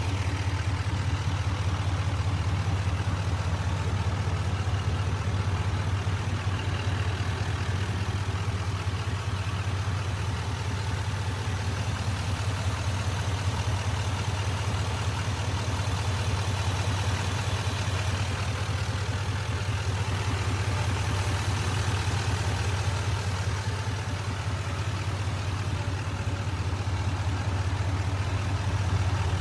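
Duramax 6.6-litre turbo-diesel V8 of a 2020 GMC Sierra 2500HD idling steadily, heard up close in the open engine bay.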